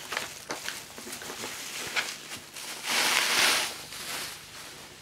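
Clear plastic packaging rustling and crinkling as it is handled, loudest for a second or so about three seconds in, with light handling clicks and taps before it.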